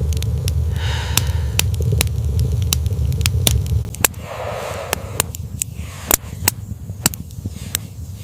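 Fire crackling, with sharp irregular pops, over a low rumble that drops away about four seconds in.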